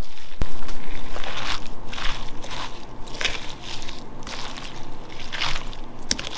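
Wooden spoon stirring shredded cabbage into okonomiyaki batter in a glass bowl: repeated wet, squelching strokes, with a click or two of the spoon against the glass.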